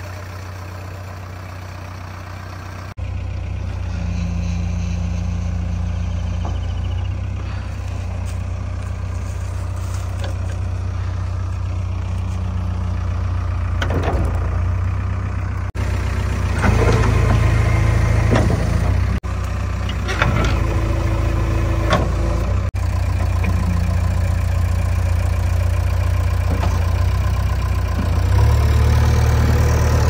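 JCB 3DX backhoe loader's diesel engine running steadily at idle, a deep even hum, with a few knocks and clanks about halfway through.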